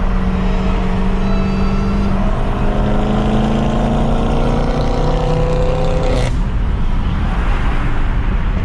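Dodge Charger SRT Hellcat's supercharged V8 engine running steadily, then accelerating with its pitch rising for about four seconds before it breaks off sharply about six seconds in, over a steady low road and wind noise.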